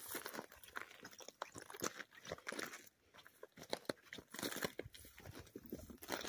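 Footsteps crunching on loose rock and gravel, a run of short irregular crunches.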